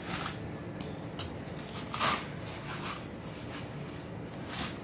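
Knife sliding along the skin of a large olive flounder fillet as it is skinned on a plastic cutting board, with three short rasping strokes, the loudest about two seconds in, over a faint steady hum.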